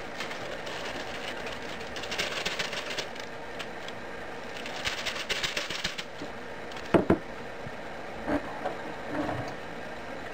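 A utensil clatters rapidly against a stainless steel mixing bowl in quick runs of clicks while brownie batter is stirred. About seven seconds in come two sharp knocks close together, then a few softer ones.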